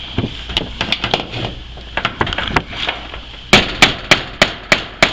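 Hammer blows on a tin roof. Light, uneven taps come first, then about a second and a half from the end a run of hard, ringing strikes at about three a second, as a fastener is driven through the metal roofing sheet.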